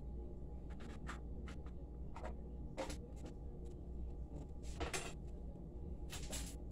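Soft, scattered scraping and rubbing strokes from hands working at a kitchen counter during food preparation, over a steady low hum.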